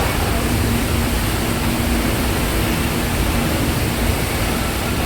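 Passenger ferry's engines running steadily with a low hum, under a constant rush of wind and water noise.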